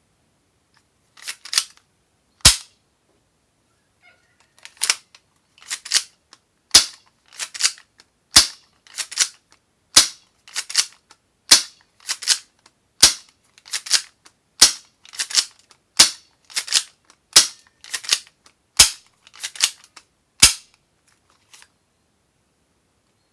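Spring-powered airsoft M9 replica pistol (semi-metal) being cocked and fired over and over. A cluster of clicks from cocking comes before each sharp snap of a shot. There are about eleven shots, roughly one every second and a half.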